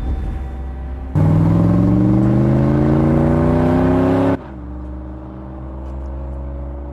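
Car engine sound effect: a steady low engine drone, with a loud stretch of the engine accelerating and rising in pitch from about a second in. The acceleration cuts off suddenly about four seconds in, and the engine settles back to a steady drone.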